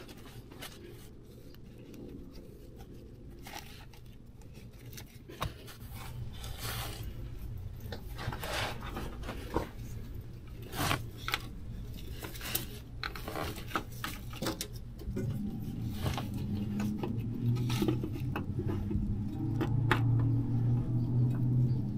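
Scattered light clicks, scrapes and rubs as a new spin-on oil filter is handled and threaded by hand onto a 2007 Hummer H3's filter mount. A low steady hum comes up in the second half.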